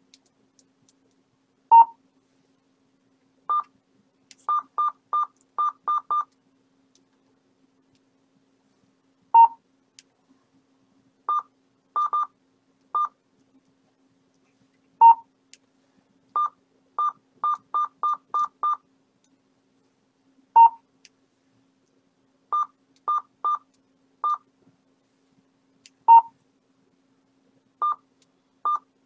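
Uniden BCD536HP scanner giving key-press beeps as the DMR unlock key is keyed in: short higher beeps in quick runs of two to six, with a lower, louder beep about every five to six seconds. A faint steady hum sits underneath.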